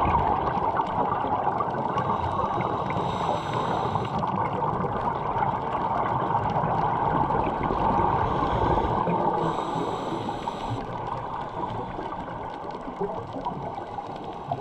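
Muffled underwater noise picked up through a camera's housing, a steady rushing, with two short bursts of bubbling about six seconds apart from a diver exhaling.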